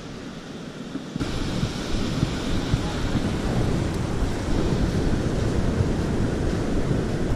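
Wind rumbling on the microphone over breaking ocean surf on a beach, turning abruptly much louder about a second in.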